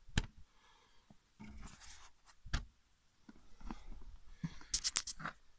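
A home-made rubber-sheet cat flap being pushed by hand and swinging back, giving soft knocks against its wooden door. There is a sharp knock just after the start, another about halfway through and a quick run of clicks near the end.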